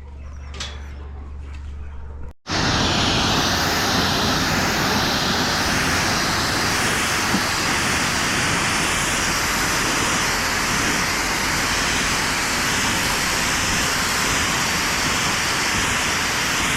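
A pressure washer spraying, a loud, steady rushing noise that cuts in suddenly about two and a half seconds in, after a low steady hum.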